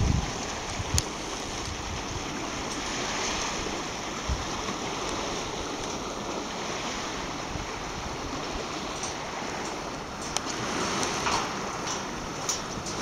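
Steady hiss of wind and lake water, with a few faint clicks scattered through it.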